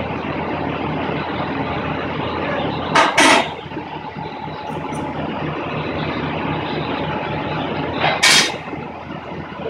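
A vehicle running steadily, with two short, loud bursts of hissing noise about five seconds apart.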